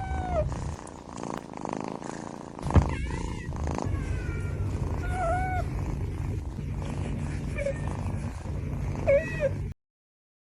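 A cat purring steadily, with several short meows over the top and a sharp knock about three seconds in; the sound cuts off near the end.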